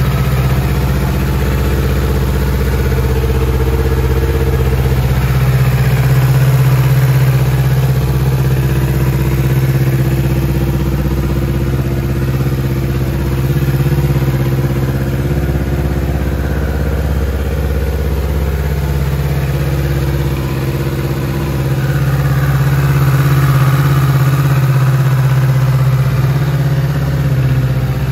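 Kawasaki Z650's parallel-twin engine idling steadily through an aftermarket Akrapovic exhaust.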